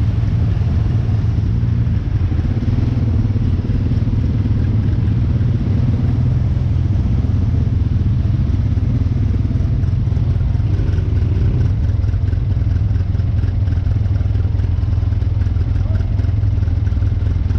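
An off-road vehicle's engine running steadily with a constant low hum and some rattle, as heard while riding along.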